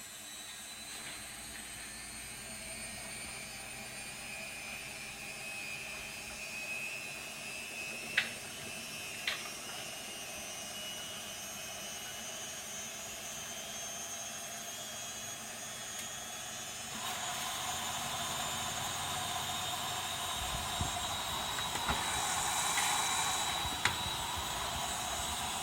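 Candy Optima CO 10651 washing machine running its Cottons 60° cycle: a steady motor whine with two sharp clicks about eight and nine seconds in, and a louder rushing noise joining about seventeen seconds in.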